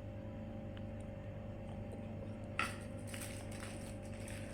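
A steady low electrical hum, then about two and a half seconds in, a sudden start of crinkly rustling and small clicks as aluminium foil with chicken mince on it is handled and folded.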